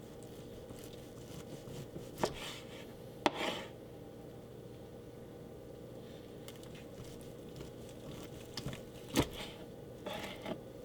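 Knife slicing through a roasted corned beef, with a few short sharp knocks: one about two seconds in, a pair around three seconds, and one near nine seconds.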